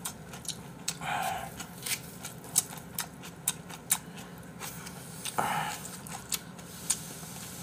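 Close-up eating sounds of instant ramen: two short slurps, about a second in and again near the end, with a run of sharp wet clicks and smacks from chewing and chopsticks between them.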